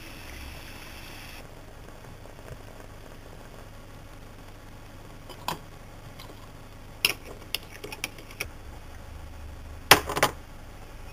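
Hiss of espresso pouring from a La Pavoni Europiccola lever machine, cutting off about a second in. Later, a porcelain espresso cup clinks against its saucer several times, loudest as a quick double clink near the end.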